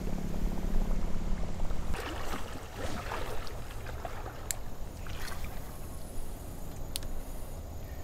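Creek water sloshing and gurgling close by, in irregular splashes, with two sharp clicks in the second half.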